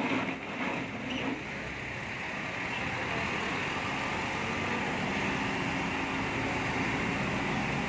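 Marais micro-trenching machine running steadily, its wet saw blade grinding a narrow slot through concrete pavement over the drone of its engine.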